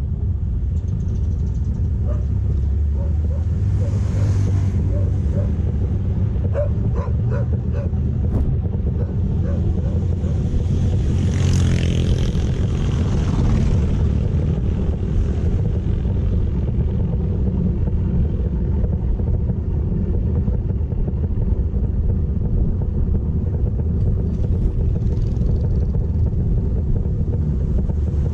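Steady low rumble of a motorcycle ride: engine and wind buffeting the microphone. A rushing sound swells and fades about twelve seconds in.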